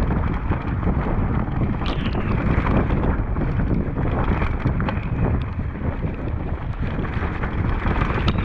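Mountain bike descending a forest dirt trail at speed: wind buffeting the microphone over tyres rolling on dirt and stones and the bike rattling over the bumps, with sharp knocks about two seconds in and near the end.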